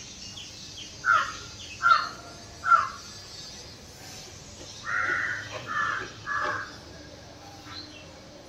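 Crows cawing: three sharp caws about a second apart, then three longer caws around the middle.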